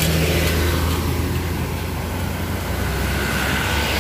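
Diesel engine of an intercity bus passing close by: a steady low engine drone with road noise, with a faint high whine coming in near the end.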